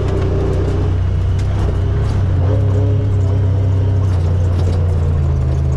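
Engine of a Honda side-by-side UTV running steadily under way, heard from the driver's seat as a loud, even low hum.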